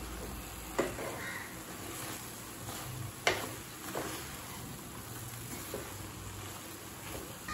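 Spatula stirring and turning cooked rice in a non-stick kadai: soft scraping with a few sharp knocks of the spatula on the pan, the loudest about three seconds in.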